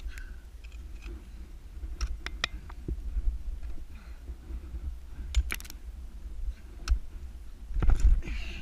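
Ice axe picks and crampon front points striking glacier ice: a series of sharp knocks a second or more apart, the loudest cluster near the end, over a steady low rumble.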